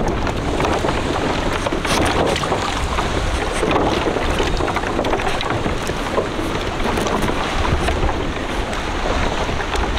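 Wind buffeting the microphone: a steady rumbling noise, with a few faint knocks.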